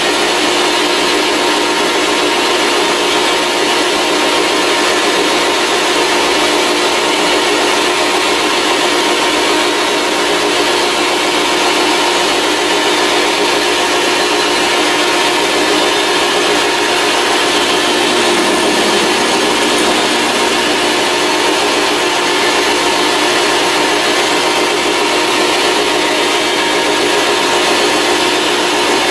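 Grizzly G0602 benchtop metal lathe running steadily at speed, its chuck spinning: a constant machine hum with several fixed tones over an even mechanical noise.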